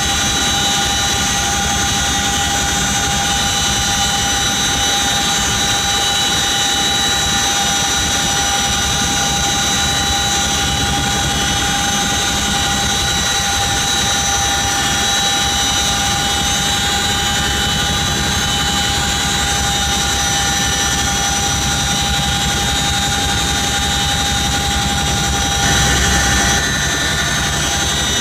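CH-47 Chinook helicopter in flight, heard from inside the cabin at the open rear ramp: its twin turboshaft engines and tandem rotors give a steady whine of several high tones over a dense low rumble of rotor and wind. Briefly a little louder near the end.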